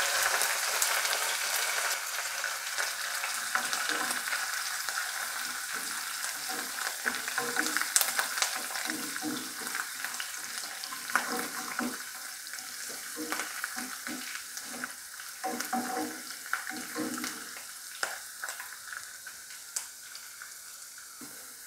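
Chopped ginger, garlic, green chilli and curry leaves sizzling in hot coconut oil with mustard and fenugreek seeds while being sautéed. A wooden spatula scrapes and clicks against the pot now and then. The sizzle fades gradually over the stretch.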